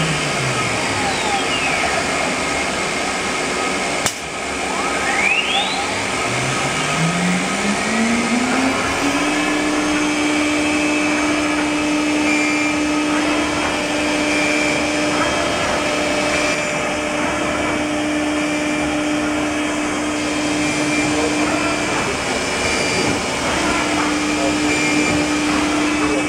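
CNC wood router's spindle winding down in a falling whine, a sharp click about four seconds in, then the spindle spinning back up in a rising whine over about three seconds and running on at a steady pitch. A steady rushing machine noise runs beneath.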